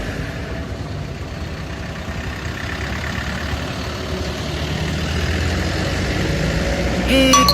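Road traffic with heavy vehicle engines running, a steady low rumble that swells as vehicles pass about five to six seconds in. A vehicle horn blasts near the end.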